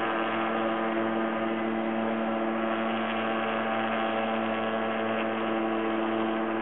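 Tow plane's engine giving a steady, even drone while it pulls a hang glider aloft on aerotow.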